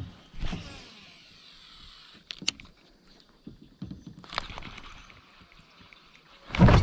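Handling noise on a fishing kayak: a few sharp knocks with short rushing washes after them, and a loud low thump against the boat near the end.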